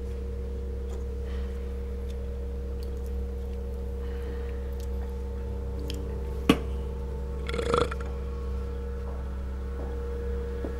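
A steady low drone, with one sharp knock of an aluminium beer can on a wooden tabletop about six and a half seconds in, and a short rough sound about a second later.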